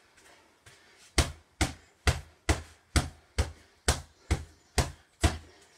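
Boxing gloves striking a heavy punching bag lying on the ground: ten heavy punches, about two a second, starting about a second in.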